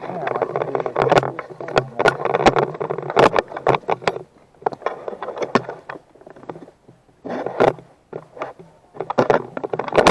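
GoPro rattling and knocking in a loose base-plate mount: irregular bursts of clatter and rubbing with many sharp clicks, in clusters about a second long with short pauses between them.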